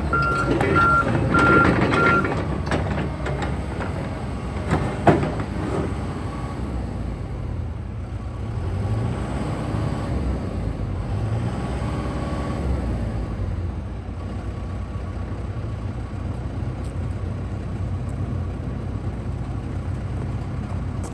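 Volvo EC160DL excavator's diesel engine running steadily under load, with its travel alarm giving a row of short high beeps over the first two seconds as the tracks move. A single sharp knock comes about five seconds in.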